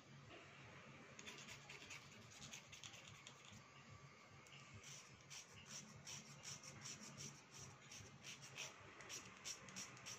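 A slate pencil being scraped with a small metal blade: a faint run of short scratching strokes. The strokes start about a second in and come more often in the second half.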